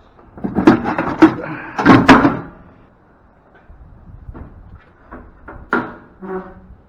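Metal parts of a scrapped machine clanking and rattling as they are handled: a burst of loud knocks and clatter in the first couple of seconds, then a few lighter clicks.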